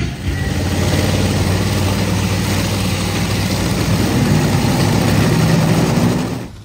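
Supercharged nitro-burning V8 of a Top Fuel dragster idling, loud and steady, with a low rough running note. It cuts off suddenly near the end.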